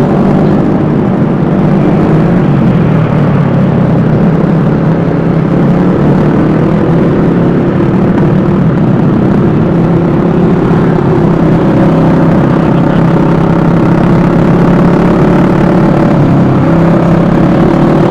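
Vespa S 125 scooter's single-cylinder engine running steadily while riding, with wind rumble on the microphone.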